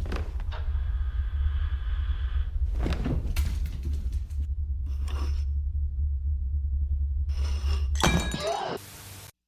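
A steady low hum with several knocks and thuds over it: one just after the start, one about three seconds in, one about five seconds in, and a cluster near the end.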